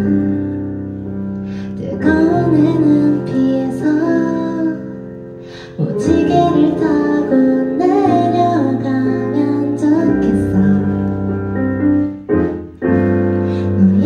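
A woman singing a slow, gentle song to keyboard accompaniment, with short breaks between phrases.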